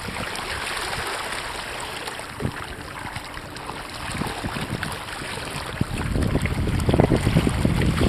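Sea water splashing and rushing along the hull of an inflatable kayak under sail. Wind buffets the microphone, growing louder over the last two seconds.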